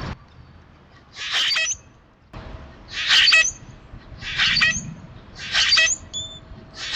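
Common grackle song: a harsh, rasping creak that ends in a short high squeak, repeated about five times, roughly every second and a half, as part of its puffed-up display.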